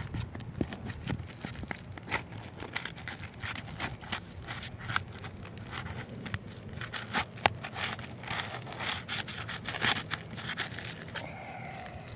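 Irregular run of clicks, scrapes and rustles, with a brief pitched sound near the end.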